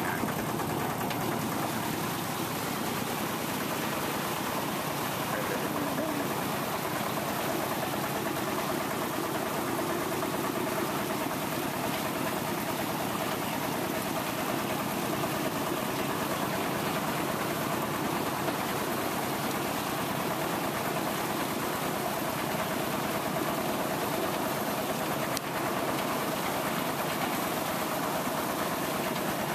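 Motorcycle tricycle's engine running steadily with a fast, even chug while it moves through floodwater, over the wash of water churning beneath it.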